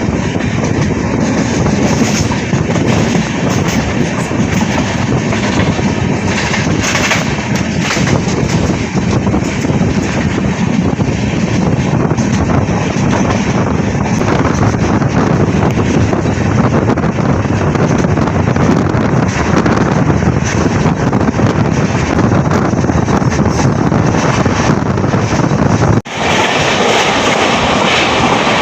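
Express passenger train running at speed, heard from on board: a steady rumble of wheels on the rails. About 26 seconds in the sound breaks off abruptly and resumes brighter and hissier.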